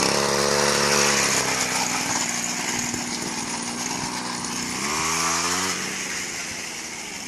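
Two-stroke grass-cutter engine on a motorized bicycle running, revving up with a rising pitch about five seconds in, then fading as the bike rides away.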